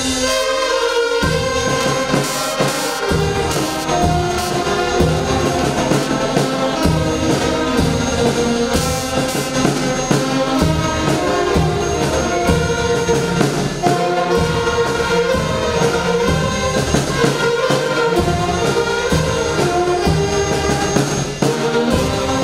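Instrumental music with held notes over a steady beat.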